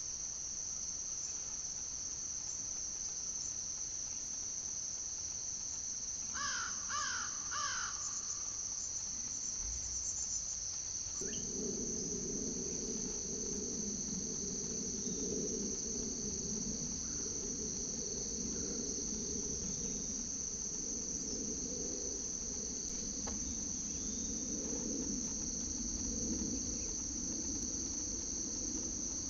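Steady high-pitched insect chorus throughout. A crow caws three times in quick succession about six seconds in, and a low steady rumble joins about eleven seconds in.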